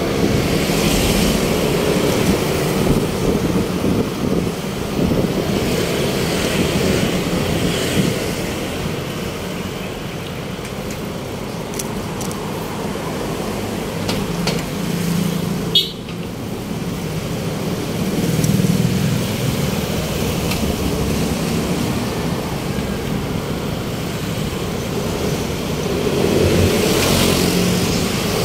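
Road traffic: a steady rumble of motor vehicles on a city street, swelling now and then as vehicles pass. A short high squeal cuts in about halfway through.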